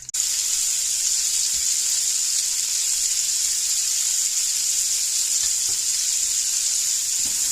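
Onions frying in a hot pot: a loud, steady sizzle that starts suddenly as they go in, then keeps up evenly.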